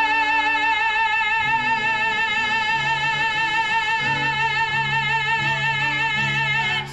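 A singer holds one long high note with a steady vibrato at the end of a musical-theatre song, over an accompaniment whose low notes change beneath it. The note cuts off sharply near the end.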